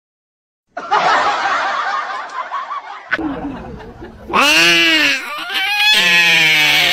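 Wheezy, snickering laughter starts about a second in. From about three seconds a drawn-out voice follows, its pitch sweeping up and down.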